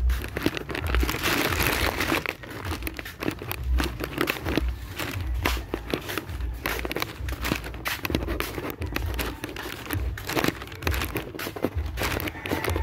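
Footsteps of a person walking, with crackling, rustling handling noise on a hand-held camera's microphone.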